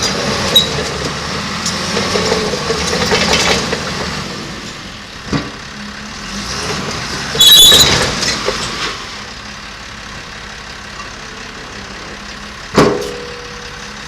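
Caterpillar D5G XL crawler dozer's diesel engine running, dropping back to a lower, steadier idle about four seconds in. Two sharp metal clanks sound about five and thirteen seconds in, the second ringing briefly, and a short high screech comes just past the middle.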